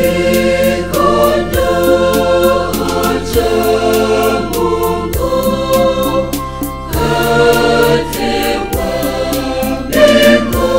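Mixed choir of men and women singing a gospel song together over backing music with a steady beat.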